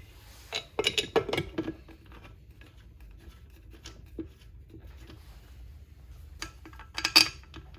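Steel bolts clinking and ticking against the 4L60E transmission case as they are started into their holes by hand: a cluster of sharp clicks about a second in, light scattered ticks, and another cluster of clicks near the end.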